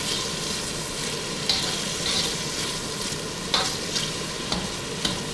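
Sliced bell pepper, onion and garlic sizzling steadily in a hot wok while being tossed with metal tongs, which scrape and click against the pan several times.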